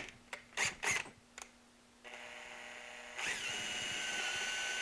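Makita cordless drill: a few sharp clicks as its keyless chuck is twisted by hand, then the motor starts running about two seconds in and gets much louder with a steady high whine about three seconds in.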